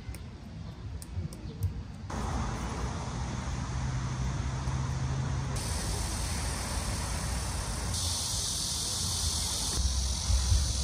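Outdoor ambience: a steady hiss over a low rumble, with a high insect-like drone in parts. It changes abruptly a few times.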